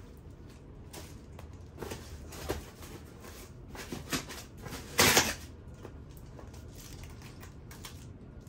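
Handling noises while an electric bike is unpacked and assembled: scattered knocks and clatters of parts and packaging, the loudest a short burst about five seconds in.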